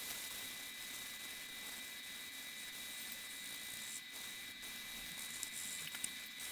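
Fine wet-and-dry abrasive paper rubbed back and forth over the rusty steel plate of a Sandvik hand saw, wet with mineral spirits: a steady scratchy hiss with a brief break about four seconds in and a few light clicks near the end.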